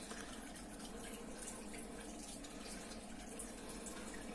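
Steady, faint room noise, an even hiss over a low hum, with light rustling as two plastic action figures are handled.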